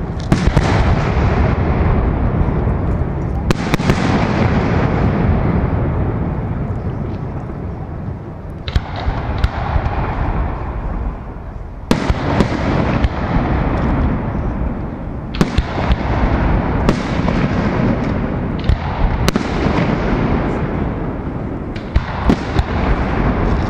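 Aerial fireworks shells bursting overhead in a professional display: a string of sharp bangs every few seconds over a continuous low rumble of echoing booms.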